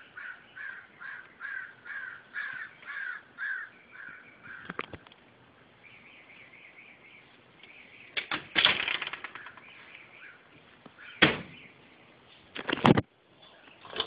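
Crows cawing in a quick, even series of harsh calls, about two or three a second, that stop after about four seconds. Later come three loud, sharp thumps, spaced a couple of seconds apart.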